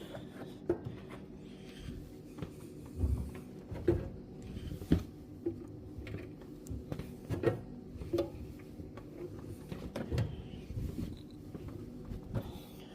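Irregular knocks, clunks and soft thuds of laundry being handled and loaded into a Hoover tumble dryer's drum, over a faint steady hum.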